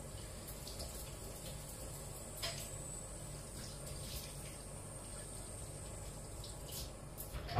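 Steady, low hiss of water, with a few faint clicks.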